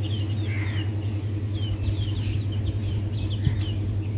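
Small birds chirping over and over in short, quick falling notes, over a steady low hum.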